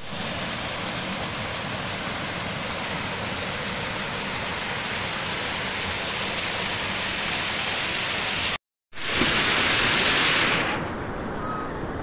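Water from a small mountain waterfall rushing and splashing steadily down over boulders into a rocky pool. After a brief break about three-quarters of the way through, a louder, brighter rush lasts about two seconds and then drops away.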